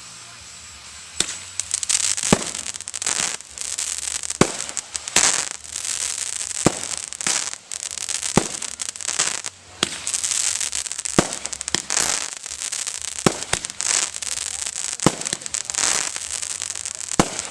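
Fireworks display: a steady run of aerial shell bursts about once a second or so, with dense high-pitched crackle filling the gaps between them, starting about a second in.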